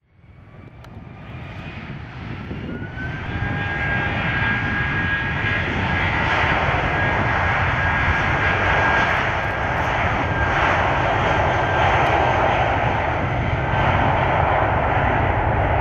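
Airbus A319 jet engines at takeoff thrust during the takeoff roll: a loud, steady engine noise with a high whine. It grows louder over the first few seconds, with the whine climbing in pitch about two to three seconds in, then holds steady.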